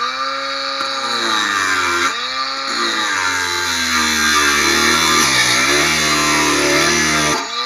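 Parkside cordless angle grinder cutting through a steel barbecue leg: a high motor whine over a harsh grinding hiss, its pitch sagging as the disc bites under load. Near the end the disc comes free and the motor speeds back up.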